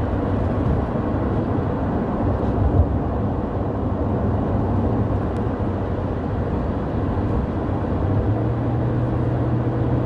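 Steady road and engine noise heard inside a moving vehicle's cabin, a low rumble that settles into a steadier low hum about eight seconds in.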